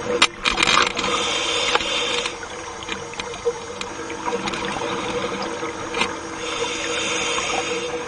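Underwater ambience: scattered sharp clicks and crackles over a faint steady hum, with two stretches of hiss about two seconds long, one near the start and one near the end.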